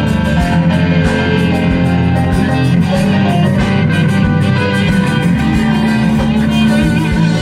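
Live country-rock band playing an instrumental passage: guitars over bass and drums, with a steady beat.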